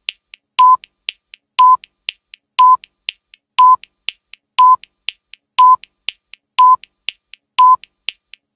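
Countdown timer sound effect: a short electronic beep about once a second, with a faint tick between the beeps.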